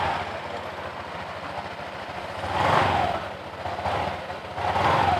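Honda Vario 125 single-cylinder scooter engine running with the CVT cover off, revved in short throttle blips, the strongest a little over halfway through. The CVT drive belt and pulleys spin freely, and the knocking from the front pulley is gone now that the worn slider pieces are fixed.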